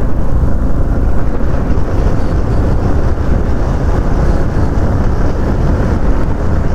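Bajaj Platina single-cylinder motorcycle being ridden at steady speed through a road tunnel, its engine drone mixed with a steady rush of wind and road noise.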